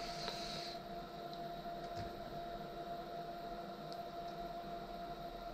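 Steady electrical hum with a constant faint tone from a powered DIY CNC test bench of stepper motors and drivers, with a few faint clicks.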